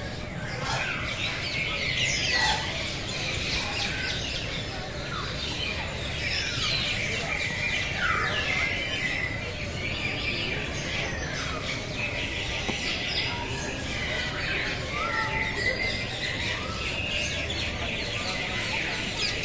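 Many birds chirping and squawking at once: a dense, unbroken chorus of overlapping short calls and whistles.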